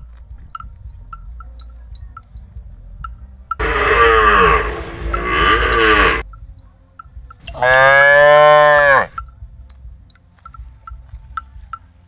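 Cattle mooing twice: a long moo about three and a half seconds in, then a second, shorter one about seven and a half seconds in.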